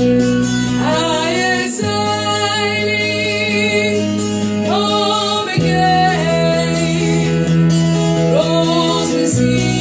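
A song with a singing voice over held bass and accompaniment, the chords changing about every two seconds.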